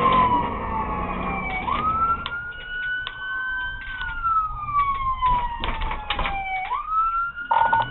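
Police car siren in a slow wail: the pitch jumps up quickly, then falls slowly over a few seconds before jumping up again, about twice. A few short clicks sound near the end.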